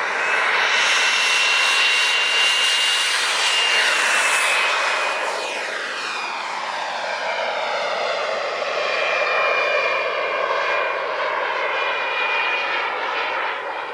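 Small model jet turbine (REN54 Mark 4) of an RC F-16 at power through takeoff and climb-out: a high whine over a broad rushing noise. The pitch falls about five seconds in as the jet goes by, and the sound eases off near the end as it climbs away.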